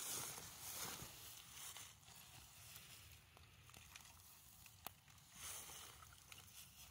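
Faint rustling scrape of a bamboo rake raking dry leaves and ash over a smouldering leaf fire, louder for the first couple of seconds, with a few small sharp ticks, one clearer about five seconds in.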